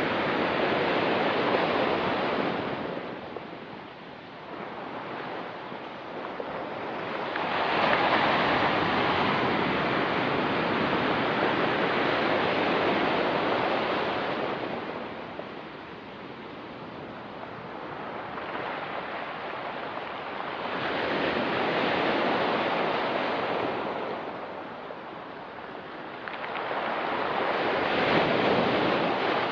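Ocean surf on a rocky beach, waves breaking and washing in slow surges every six to seven seconds, swelling to a loud rush and then fading back between them.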